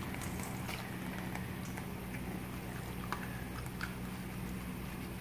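Wolf cub eating from a bowl: scattered small clicks of chewing and biting, over a steady low hum.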